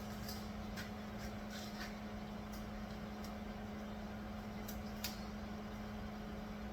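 A steady low hum, like a running machine, with a scattered handful of light clicks and taps; the sharpest comes about five seconds in.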